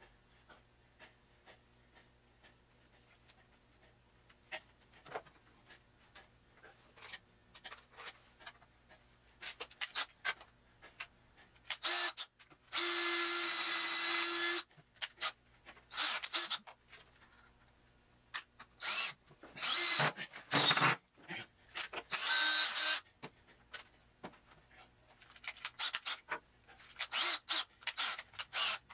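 Cordless DeWalt drill run in several separate bursts, the first and longest lasting about three seconds, boring into a wooden block. Before the drill starts, about halfway through, there are only faint scattered clicks and taps of handling.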